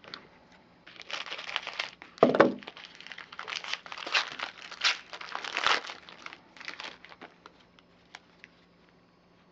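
Foil wrapper of a Topps baseball card pack being torn open and crinkled by hand. It makes a run of crackling rustles with one louder crackle about two seconds in, and stops about seven seconds in.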